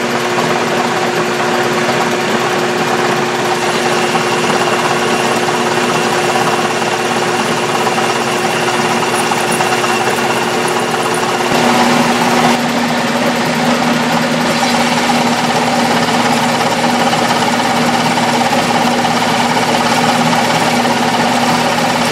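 Metal lathe running under power while a boring bar bores out a stator: a steady mechanical hum and whine of motor and gearing. About twelve seconds in, its steady tone drops to a lower pitch.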